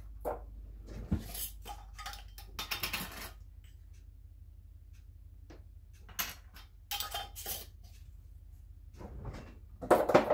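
Small spice jars clinking and rattling against each other as one is taken from a drawer of jars and garlic powder is shaken out of it, with short rasping bursts. The loudest clinks come near the end as the jar is set back among the others.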